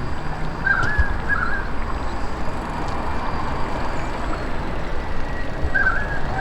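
Steady outdoor rushing noise with short bird chirps, twice about a second in and twice again near the end.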